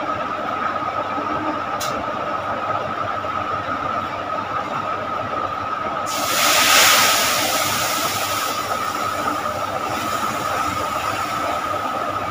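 Steady background hiss with a constant high-pitched hum. About six seconds in, a louder rushing hiss swells up and fades away over a few seconds.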